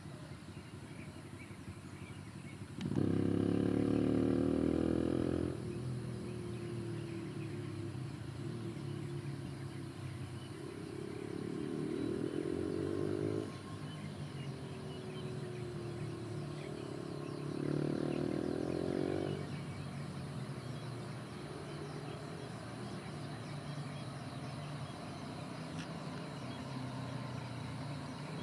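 Rubber-tyred automated metro train pulling away and running along an elevated guideway. Its traction motors whine in three spells, about three, eleven and eighteen seconds in, with the later two rising in pitch, over a steady running hum. The first spell is the loudest.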